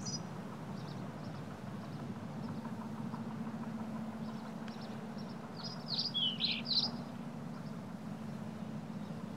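A songbird chirping in a quick run of notes about six seconds in, over a steady low hum of outdoor background noise.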